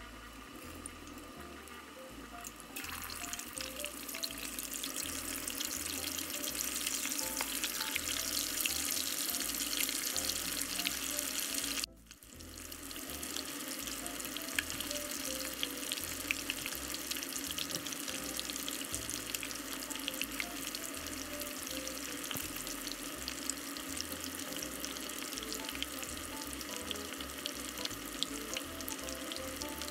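Tofu-skin-wrapped crab meat rolls deep-frying in a pot of hot oil, a dense crackling sizzle that swells up about three seconds in. It cuts out briefly near the middle, then carries on steadily.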